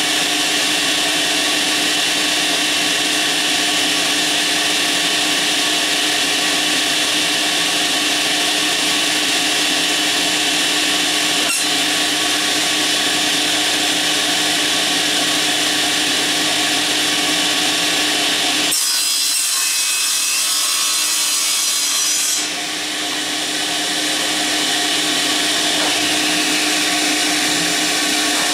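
Cabinet table saw running steadily and cutting a sheet of pegboard, its motor hum under the hiss of the blade through the board. For a few seconds about two-thirds of the way in the sound turns thinner and hissier. At the very end the saw's pitch starts falling as it is switched off and winds down.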